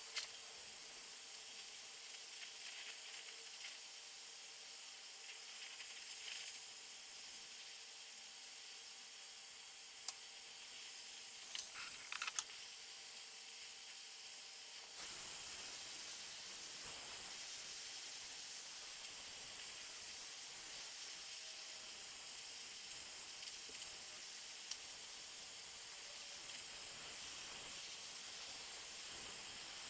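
Small jeweler's torch flame hissing steadily as it heats a strip of reticulation silver to reticulate its surface. A few light clicks about twelve seconds in, and the hiss grows slightly fuller about halfway through.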